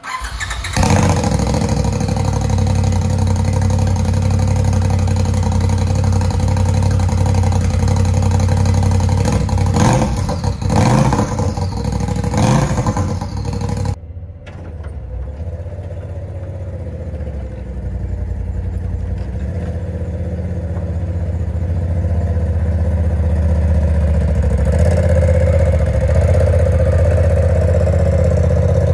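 Polaris RZR Pro XP's turbocharged twin-cylinder engine cold-started with its homemade exhaust cutout open. It fires within the first second and idles loudly, with a few throttle blips about ten seconds in. After a cut, the engine is heard idling more quietly from outside the shop, and it grows louder near the end as the machine drives out the door.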